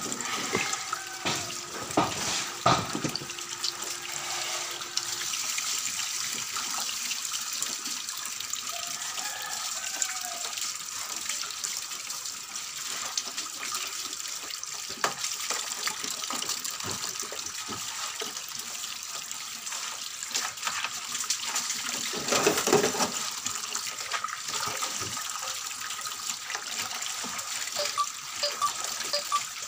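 Water running steadily from a garden hose into a stainless steel sink as whole piglet carcasses are washed by hand. A few sharper knocks stand out about two seconds in and again about two-thirds of the way through.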